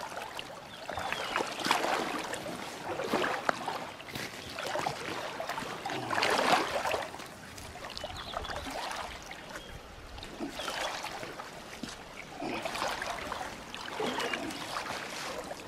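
River water rushing and splashing around a wading angler while a hooked fish is played, swelling and easing several times, loudest about six seconds in.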